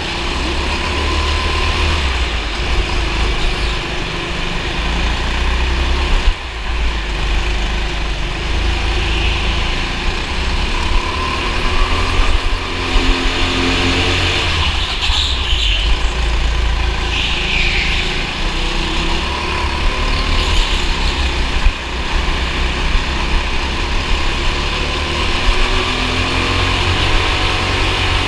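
Racing kart engine running and revving, its pitch rising and falling again and again as it accelerates and backs off, over a constant heavy low rumble heard from onboard the kart.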